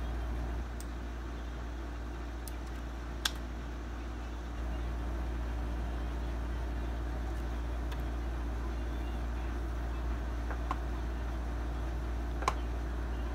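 A few sharp, isolated computer mouse clicks over a steady low hum, with about three clear clicks spread across the stretch.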